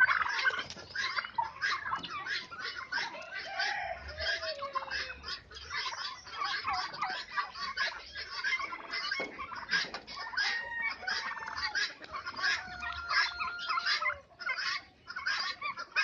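A flock of domestic turkeys and other farm fowl calling without pause: dense, rapid clucking and chattering, with a few longer, sliding calls among it.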